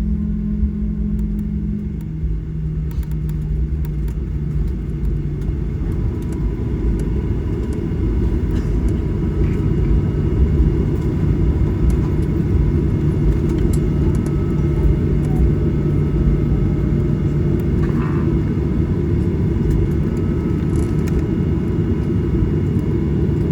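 Steady low rumble inside the cabin of a Boeing 737-800 taxiing after landing: its CFM56 engines at idle and the airframe rolling on the taxiway.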